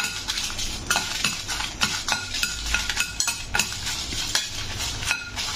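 Dried red chillies frying in a little oil in a steel kadai, stirred with a steel ladle that clinks and scrapes against the pan many times over a light sizzle.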